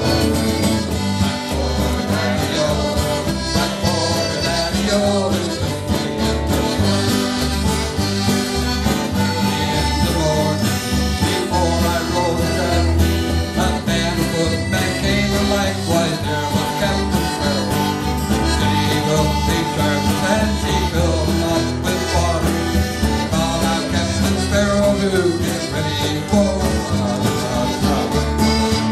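Live band playing a tune on button accordion, strummed acoustic guitar and electric bass, with a cajón keeping the beat.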